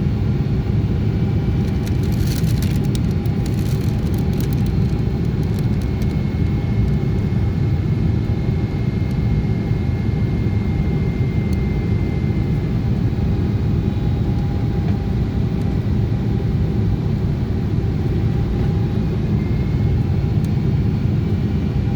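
Steady cabin noise inside a Boeing 777-200ER on descent: a deep, even rumble of airflow and engines with faint steady whines above it. A few faint clicks come about two to five seconds in.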